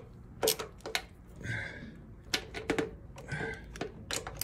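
Hand socket ratchet working a bolt: irregular sharp metal clicks, some in quick runs, with two short rasping sweeps of the ratchet mechanism.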